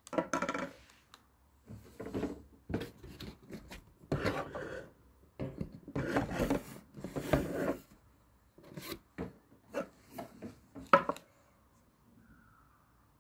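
Intermittent handling noises: rubbing, scraping and rustling of packaging and a plastic casing, in irregular strokes, with one sharp click about eleven seconds in. The hair dryer itself is not running.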